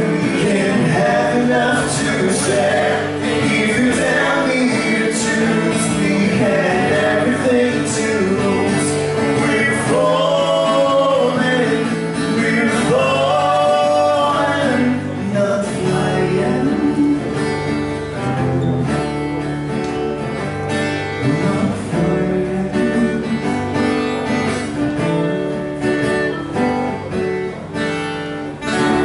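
A band playing a song live: singing over guitar and a full band, with long sung notes sliding in pitch about a third of the way in.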